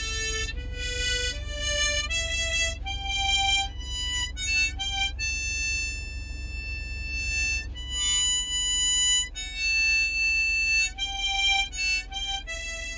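Background music: a slow solo melody of held notes on a wind instrument, over a low steady hum.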